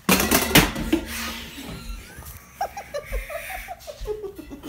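A bottle dropped down a stairwell hits the floor below with a loud impact and a second knock about half a second later as it bounces, followed by boys laughing.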